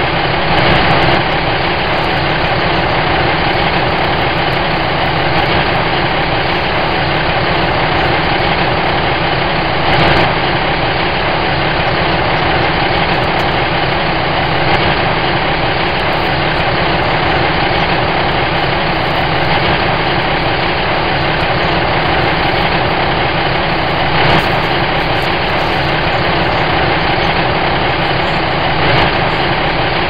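An engine idling steadily: a constant, even mechanical rumble with a few brief small swells in level.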